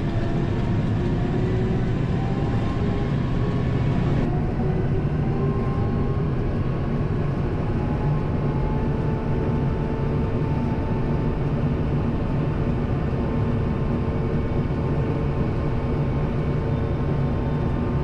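Kubota M7060 tractor's four-cylinder diesel engine running under way, its note climbing slowly as the tractor gathers speed, heard from the cab with the defrost fan blowing.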